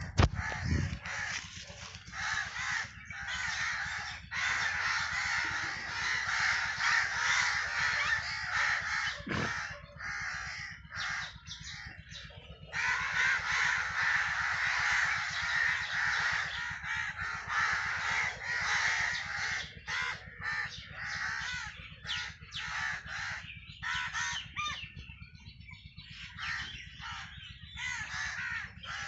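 Crows cawing again and again, over a faint steady low rumble.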